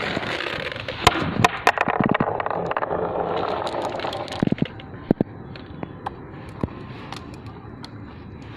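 Marbles rolling down a marble-run track: a rolling rumble with many sharp clicks as they knock against each other and the track. The rolling dies down after about four seconds, leaving a few scattered clicks.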